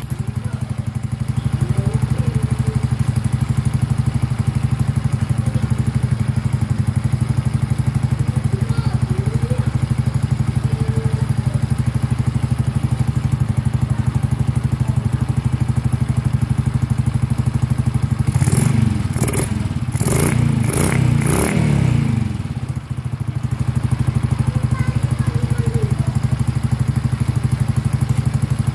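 Suzuki Raider J Fi 115's single-cylinder four-stroke engine idling steadily, blipped quickly about five times in a row near two-thirds of the way through before settling back to idle.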